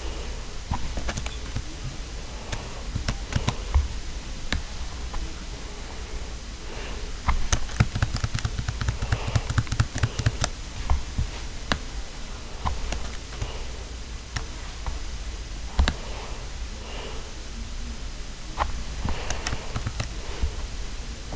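Irregular clicking and tapping on a laptop, with a dense run of clicks about eight to eleven seconds in, over a low steady hum.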